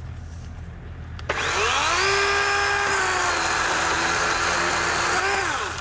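DeWalt 40V battery chainsaw starting suddenly about a second in, its motor whine rising fast to full speed, running steadily with a slight drop in pitch as it cuts small branches, then winding down near the end.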